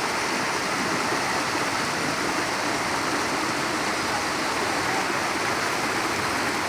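Rushing water of a waterfall stream, a steady, even rush with no breaks.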